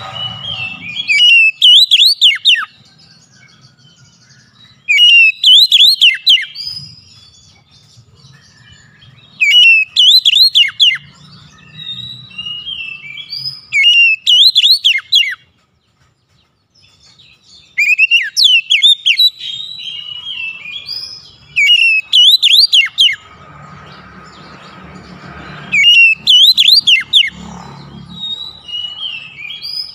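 Oriental magpie-robin singing: about seven loud phrases of quick, sweeping whistled notes, each a second or two long, with softer short notes between the phrases.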